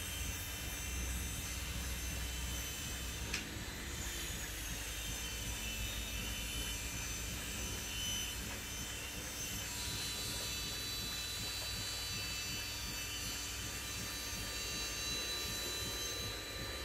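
Steady mechanical background hum and low rumble with faint high whines, and a single sharp click about three and a half seconds in.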